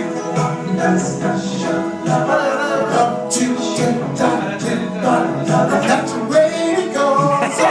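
Live music with singing during a band's soundcheck, the voices carrying the melody over the instruments.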